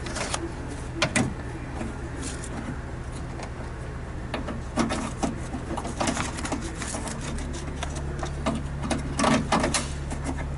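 Scattered clicks and taps of door parts being handled and fitted back into a car door, over a steady low hum that gets louder about seven seconds in.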